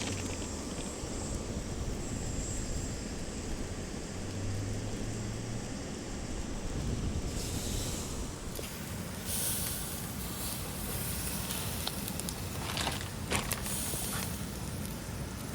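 Yakitori cooking over a fire: a steady low hiss with faint crackle that turns to a brighter sizzle from about seven seconds in, with a few light clicks near the end.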